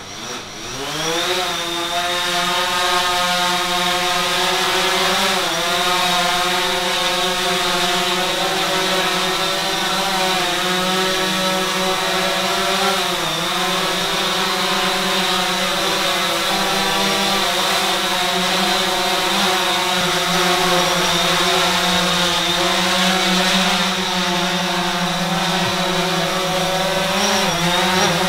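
DJI Phantom 4 quadcopter's propellers spinning up for takeoff, rising in pitch over the first second or so, then hovering with a steady whine whose pitch wavers briefly a few times as the drone is steered.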